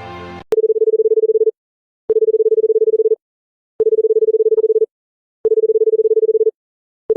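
Telephone-style electronic tone beeping on and off: four steady beeps of about a second each with gaps of about half a second, each starting with a small click, and a fifth beginning at the very end.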